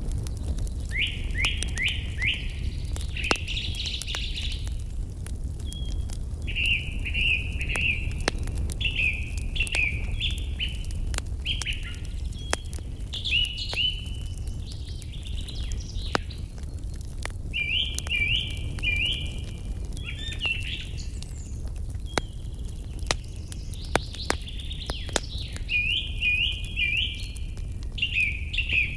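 A songbird sings short repeated chirping phrases again and again, over the scattered sharp crackles of a wood fire and a low steady rumble.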